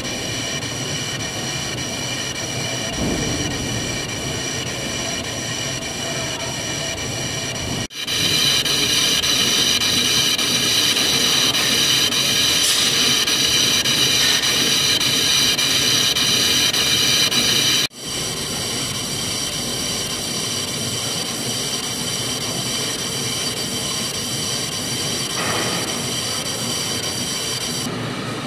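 A 7-metre engine lathe turning a long steel shaft while the tool takes a cut: steady machine running noise with several constant high-pitched whining tones. The sound changes abruptly about 8 and 18 seconds in and is louder between those points.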